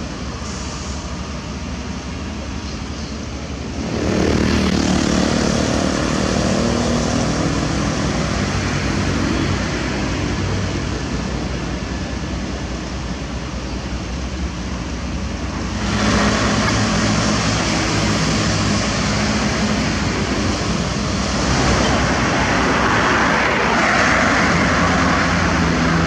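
Heavy diesel trucks running on a road, a steady engine drone with traffic noise. The sound jumps abruptly louder about four seconds in and again about twelve seconds later.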